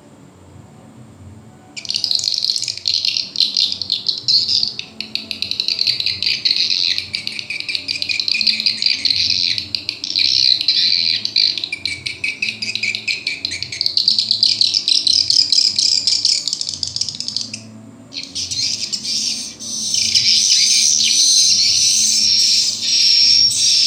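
Recorded swiftlet calls played back from a swiftlet-house sound machine: dense, high twittering chirps starting about two seconds in, breaking off briefly about three-quarters of the way through, then resuming.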